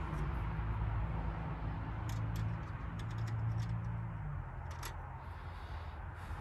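Scattered light clicks and taps of small parts being handled while fitting a battery clamp under a car bonnet, over a low steady hum that drops away about four seconds in.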